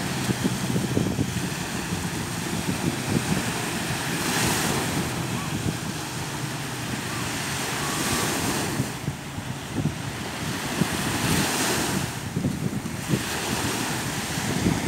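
Small waves breaking and washing up a sandy beach, with a fresh hissing wash about every three to four seconds. Wind buffets the microphone throughout.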